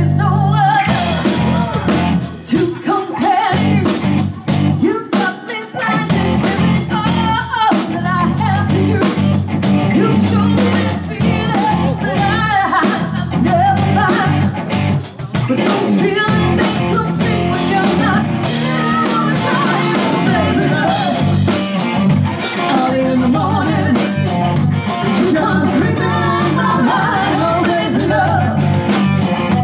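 A live rock-soul band playing: a woman singing lead over a drum kit and electric guitar. The drums come in about a second in and keep a steady beat.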